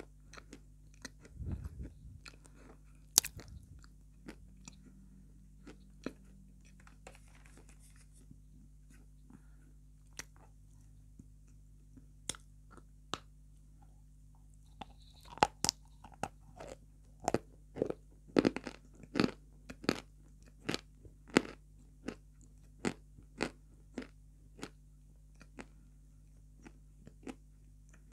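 Close-miked biting and chewing of dry white chalk chunks: sharp crunches of pieces snapping between the teeth. They are sparse at first, then come about every half second to a second from about halfway in. A low thump comes about a second and a half in.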